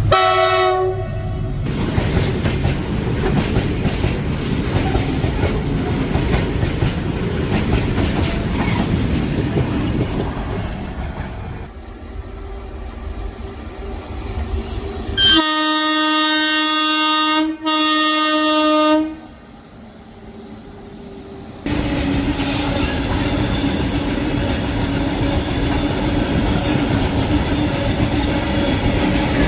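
Indian Railways WAG-7 electric locomotive's horn sounding briefly, then a freight train of BCNA covered wagons rolling past, wheels rumbling and clacking on the rails. About halfway through, the horn gives two long blasts with a short break between them, then the rumble of passing wagons resumes.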